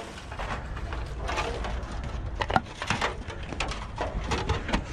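Rummaging through salvage in a dumpster: scattered clicks, knocks and rustling as items are handled and shifted, with one sharp knock about two and a half seconds in.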